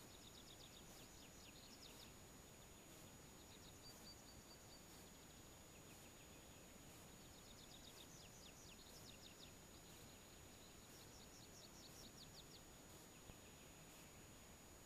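Faint birdsong: short, quick trilled phrases repeating every few seconds, over a low hiss and a thin, steady high tone.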